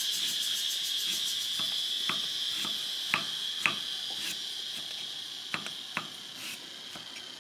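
Steady high-pitched chirring of an insect chorus, slowly fading. About eight sharp knocks are scattered through the first six seconds.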